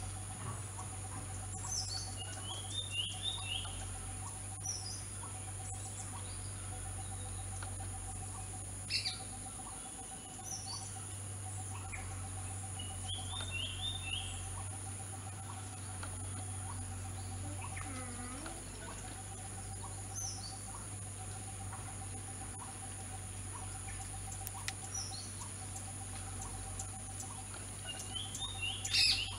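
Natural outdoor ambience: a steady high-pitched insect drone, with birds chirping now and then. A short, quick bird phrase of a few notes comes three times, loudest near the end.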